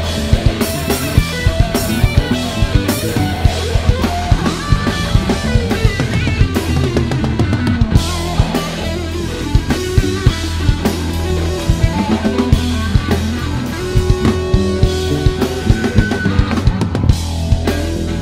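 Rock band playing live: a drum kit with driving bass drum and snare hits over electric guitar and bass guitar.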